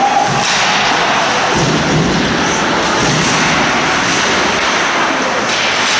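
Ice hockey game sound in a rink: a steady rushing noise with a few dull thuds.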